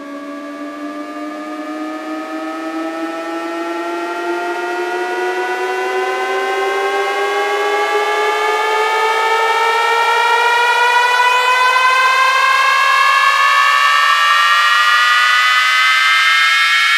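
Electronic riser at the start of a DJ sound-check track: a sustained multi-toned sound climbing slowly and steadily in pitch and growing louder throughout.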